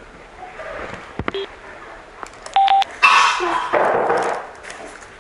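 Electronic beeps and a short chime from a motorcycle Bluetooth intercom headset during pairing setup: one steady beep about two and a half seconds in, then a louder jingle.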